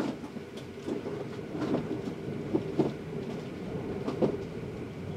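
Scattered light clicks and knocks of handling over a steady low hum.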